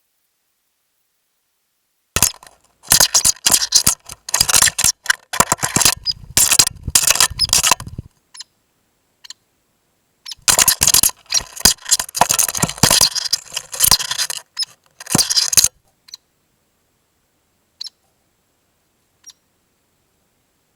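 Woodpecker pecking directly on a trail camera, picked up at point-blank range by the camera's own microphone: two bouts of rapid, loud knocking a few seconds long each, then a few single taps.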